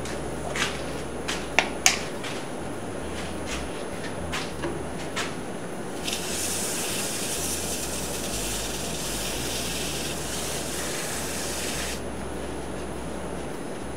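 Cloth rubbing finish onto the bottom of a wooden bowl mounted on a lathe, a steady hiss lasting about six seconds that starts and stops abruptly. Before it come a few sharp clicks and taps, the loudest pair about two seconds in.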